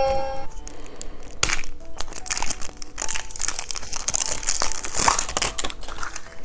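Crinkly wrapper of a surprise egg being handled and torn open, a dense run of crackling and rustling.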